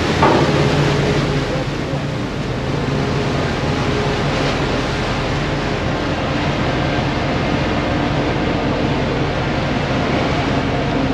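A pilot boat's engines running steadily as it moves along close to a ship's hull, with water rushing and churning between the hulls.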